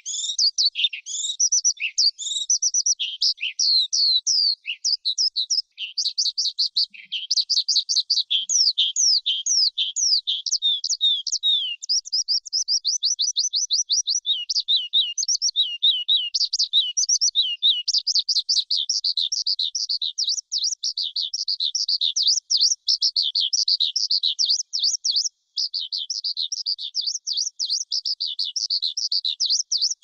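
Skylark singing: a continuous, rapid stream of high warbled and trilled notes with hardly a pause, including a fast, even trill about halfway through.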